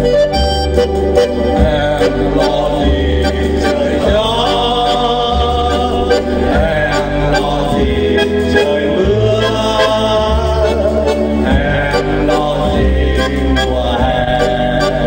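A small amateur vocal ensemble singing a song together from song sheets, over instrumental backing music with a steady bass line.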